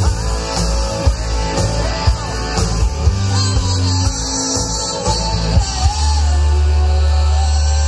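Rock band playing live: electric guitars, bass and drums, with a regular beat of drum hits. A long held low bass note comes in about six seconds in.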